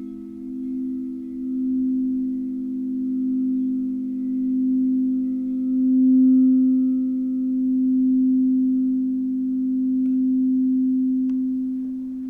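Crystal singing bowls ringing on in sustained low tones, several pitches together, the sound swelling and ebbing in slow waves.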